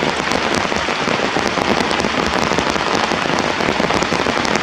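Heavy rain falling steadily, a loud dense patter of drops.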